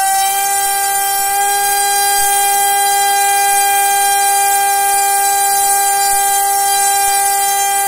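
Returner R3 2206 2300 kV brushless motor spinning a 3D-printed folding propeller at a steady high speed. The result is one steady high-pitched whine with several overtones, holding the same pitch throughout.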